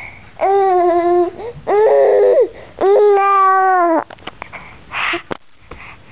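Baby vocalizing: three long, drawn-out calls, each held at a steady pitch, followed by a few faint clicks.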